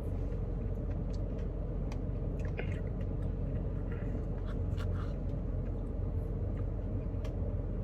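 Someone eating a Blizzard with crunchy toffee pieces: scattered soft clicks and crunches of chewing and the spoon against the cup, over a steady low hum.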